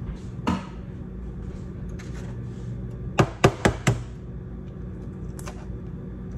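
An egg being knocked against a hard edge to crack it: a lighter knock near the start, then four quick, sharp knocks in under a second about three seconds in.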